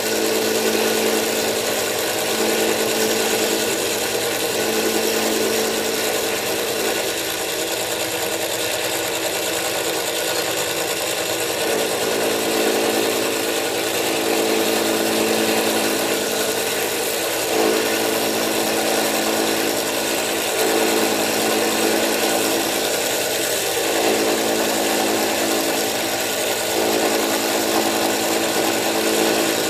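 Manual milling machine running steadily, the spindle motor's hum under the hiss of the cutter milling the lock relief into a frame lock knife's frame.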